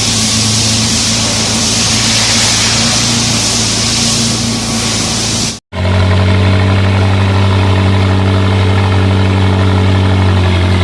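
McLaren car engine running steadily just after finally starting, following months of sitting unused. A loud hiss rides over it for the first half. After a brief cut about halfway through, it settles into a steady idle.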